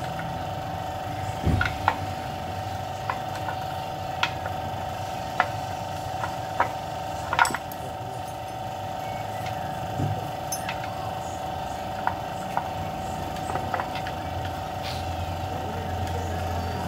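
Metal hand tools clinking and knocking against a partly dismantled engine: about a dozen sharp, separate metal knocks at irregular intervals, the loudest about halfway through. A steady hum runs underneath.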